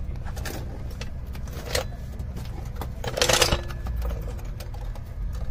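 Hydraulic low-profile floor jack being pumped by its handle as it lifts a car: metallic clicks and clanks, with the loudest rattling clank about three seconds in, over a steady low hum.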